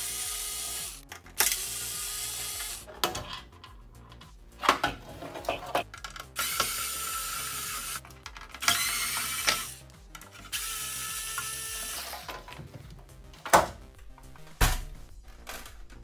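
Cordless electric screwdriver whirring in about five short runs of a second or two each as it drives screws out of the mini hi-fi's plastic chassis. Two sharp knocks come near the end.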